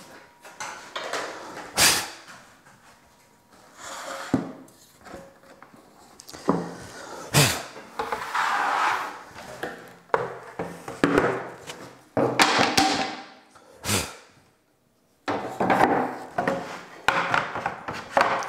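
Irregular knocks, thumps and short scrapes as a melamine panel, its offcut and a plunge saw on its guide rail are handled and shifted on a workbench; the saw is not running.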